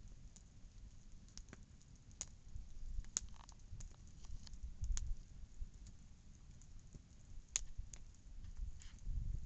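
Wood campfire crackling, with sharp pops at irregular intervals over a low rumble.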